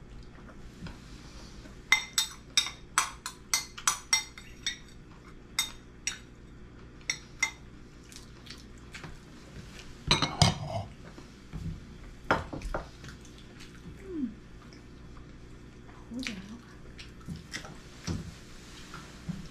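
White ceramic bowls and plates clinking and knocking against each other as they are stacked and cleared from a wooden table, with a quick run of light clinks a couple of seconds in and heavier knocks around the middle.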